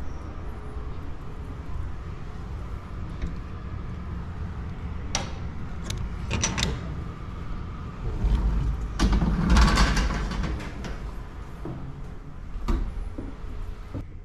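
Door of a small mine-train passenger carriage being handled and opened by hand: a few sharp latch clicks and rattles, then a louder clatter about halfway through as it swings open. A steady low hum runs underneath.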